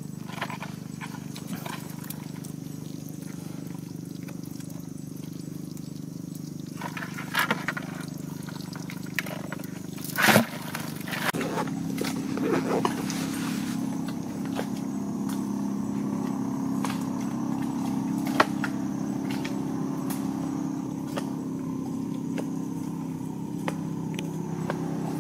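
Scattered clicks and rustles as crabs tangled in a net are handled over a plastic bucket, with one sharp knock about ten seconds in. A steady low hum runs underneath and grows louder a little after that, with sparse clicks continuing.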